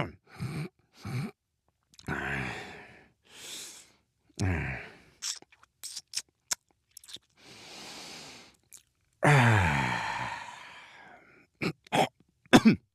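A man's voice making assorted wordless 'dad noises': mouth clicks and lip smacks, breathy sighs and short groans. About nine seconds in comes a long, loud groaning exhale that trails off.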